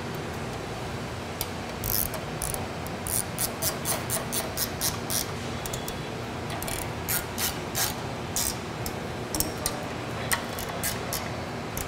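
Ratchet wrench clicking in short runs of quick, sharp clicks as the bolts on a pump's foot support are run down, over a steady low hum.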